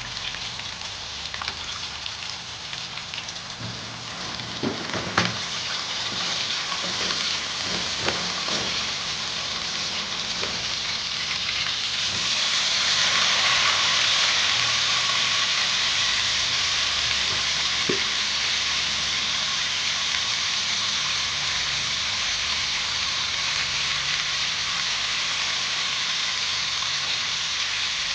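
Food sizzling in a hot pan, with a few short knocks early on as it is handled, and the sizzle growing louder about twelve seconds in.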